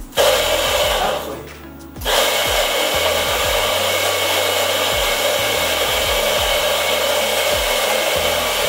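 N500 Auto electric espresso grinder grinding coffee beans into a portafilter on a timed dose. It runs for about a second, drops off briefly, then settles into a steady grinding run for the rest.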